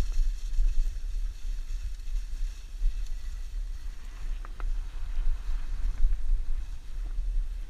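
Dog sled moving over packed snow: a steady low rumble of wind on the microphone mixed with the runners on the snow, and two faint ticks about four and a half seconds in.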